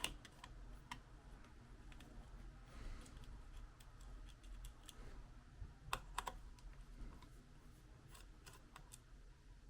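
Faint, scattered small clicks of a screwdriver working on the heatsink screws of an opened laptop, with a sharper pair of clicks about six seconds in.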